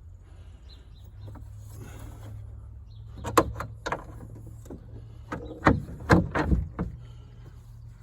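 Several sharp metal knocks and clanks while working on a car hood, the loudest about three and a half seconds in and a cluster around six seconds in, over a steady low hum.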